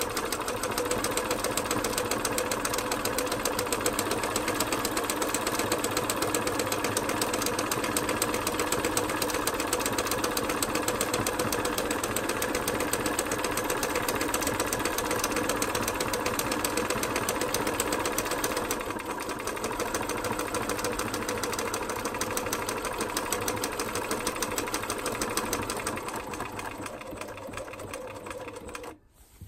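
Bernina 1230 (Riccar RCM 1230) electronic sewing machine running at speed, its motor and needle making a rapid, even stitching clatter as it sews a decorative stitch through denim. It slows near the end and stops.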